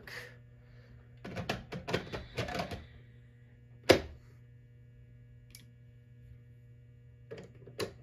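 Light clicks and knocks of hands handling fire alarm equipment: a cluster between one and three seconds in, one sharp click about four seconds in, and a few more near the end. Under them runs a faint steady electrical hum.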